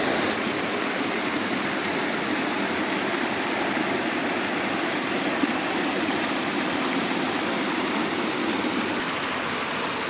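Mountain stream water rushing over rocks into a pool: a steady, even rush.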